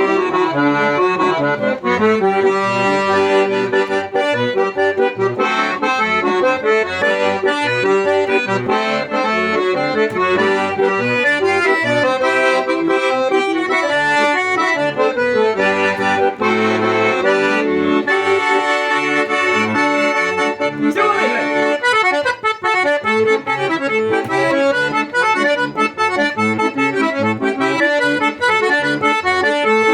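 Accordion (sanfona) playing a continuous tune, with a melody moving over a regular pattern of short bass notes.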